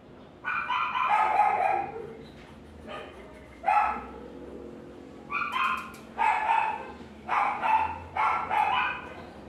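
A dog barking in a string of short bouts, the loudest near the start.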